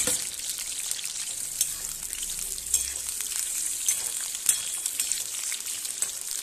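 Raw jackfruit pieces sizzling and crackling in hot oil in a steel kadhai, with a spatula turning them and clicking against the pan a few times.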